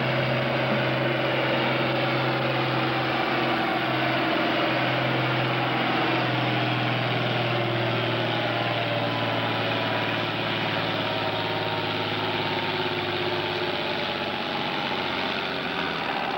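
International 1466 tractor's turbocharged six-cylinder diesel running hard under full load as it pulls a weight-transfer sled, a steady loud engine note whose pitch sags slightly in the second half as the sled bogs it down.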